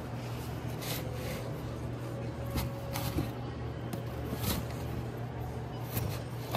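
Cardboard LP record sleeves being flipped forward in a crate by hand: a few short, soft slaps and scrapes of jacket against jacket, over a steady low background hum.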